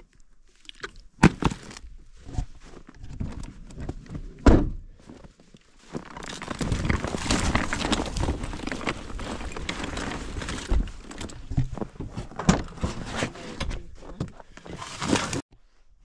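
Camping gear being loaded into a folding wagon in the snow: a few sharp thunks as items go in, then several seconds of dense rustling and crunching with more knocks, cut off suddenly near the end.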